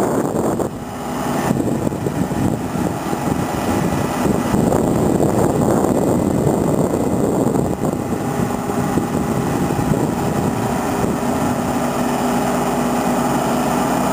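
Motor-generator set of a Škoda 14Tr trolleybus humming while the trolleybus stands still, mixed with street noise; its steady hum comes through more clearly in the second half.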